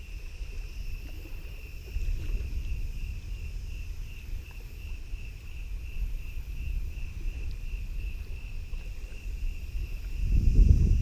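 Crickets chirping steadily at about three chirps a second, over low wind rumble on the microphone that swells in a gust near the end.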